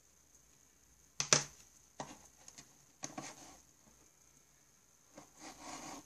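A plastic pen set down on the desk with a sharp clack about a second in, followed by a few softer knocks and rustles of a hand and arm moving over the desk and cards.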